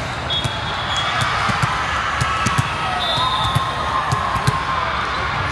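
Volleyballs being hit and bouncing during play in a busy gym: a dozen or so irregular sharp thuds over a steady background murmur of crowd voices.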